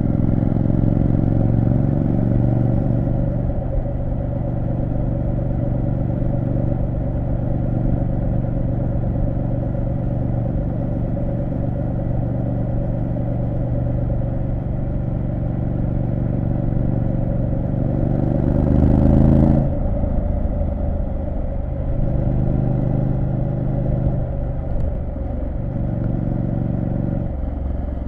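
Triumph Street Scrambler 900's 900 cc parallel-twin engine running steadily while riding. About two-thirds of the way through, the revs climb and then drop off suddenly.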